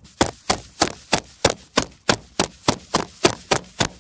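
Ice in a plastic bag being pounded to crush it into snow-like bits: a steady run of sharp blows, about three a second.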